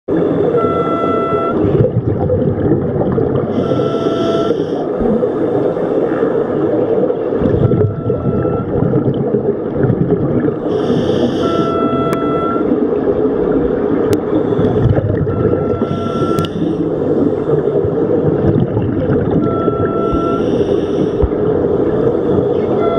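Scuba regulator breathing heard underwater. A short humming tone sounds on each inhalation, about every four seconds, alternating with hissing bursts of exhaled bubbles, all over a steady rushing underwater background.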